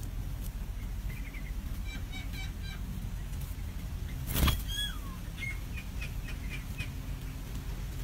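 Nestling songbirds begging with short runs of faint, thin, high peeps while being fed at the nest. About halfway through comes a single loud thump, then a short falling whistle. A steady low rumble runs underneath.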